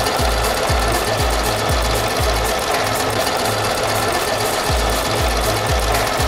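Singer 588 portable electric sewing machine running steadily, its needle stitching a straight seam through cotton fabric. Background music with a steady low beat plays underneath.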